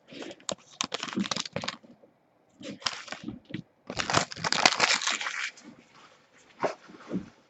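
Packaging of a trading card pack being torn open and handled: irregular runs of sharp crinkling crackles with short pauses between them.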